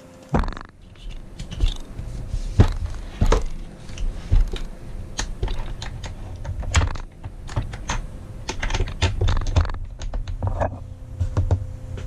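Irregular clicks, taps and knocks of a Metabo W 22-230 MVT angle grinder being handled with the motor off: hard plastic and metal parts clicking as the hands work at its gear head, and the tool set down on the workbench.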